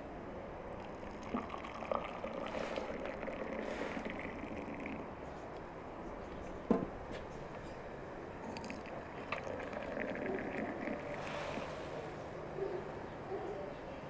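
Hot water trickling from a samovar's tap into a glass, with a few sharp clicks of glass and metal, the loudest about seven seconds in.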